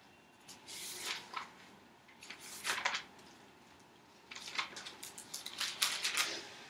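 Bible pages being turned and leafed through: several short paper rustles.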